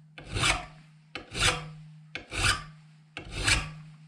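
An 8-inch double-cut hand file rasping along the bevel of a steel lawn mower blade clamped in a vise: four long, even sharpening strokes, about one a second. A low hum lingers between strokes.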